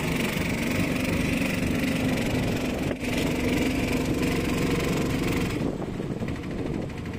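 An engine running steadily at a constant pitch, its sound dropping away to a lower, rougher hum about five and a half seconds in.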